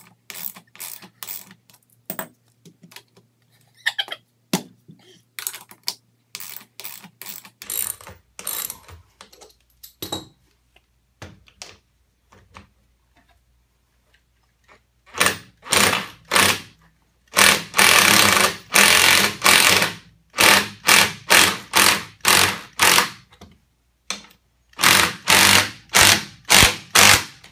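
Light metal clicks and clinks as a lag screw, washer and split lock washer are fitted by hand, then a cordless impact driver hammering the 3-inch lag screw into the wooden bench frame in a series of short trigger bursts, with one longer run among them.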